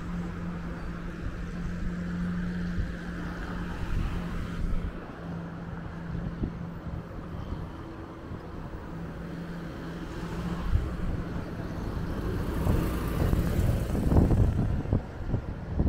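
Road traffic at a city intersection: cars driving past with a low steady hum under the tyre and engine noise. Near the end a car passes close and louder.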